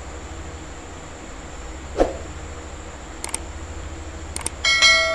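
A thump about two seconds in, then a few sharp clicks, then a bright bell-like chime near the end that rings and fades, typical of a YouTube subscribe-button animation's click and bell sound effect. A steady low hum runs underneath.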